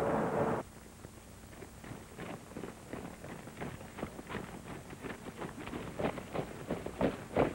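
Footsteps of several men marching and drilling on a dirt yard: irregular dull steps, a few a second, growing louder toward the end.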